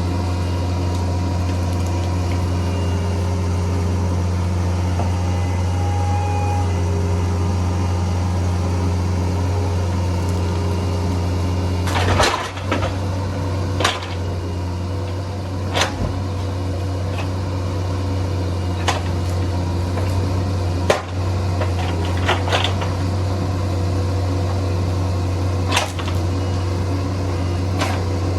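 Bobcat 341D mini excavator running at a steady low drone. From about twelve seconds in come a string of sharp knocks and clanks.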